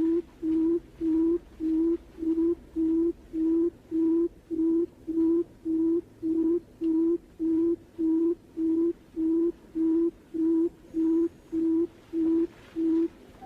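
Barred buttonquail call used as a hunting lure: a low, hollow hooting note repeated at an even pace, a little under two notes a second. The notes stop just before the end.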